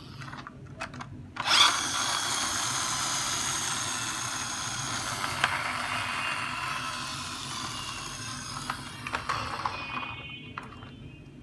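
A toy bus's wheel mechanism whirring as its wheels spin. It starts suddenly, runs steadily, then slowly dies away as the wheels run down.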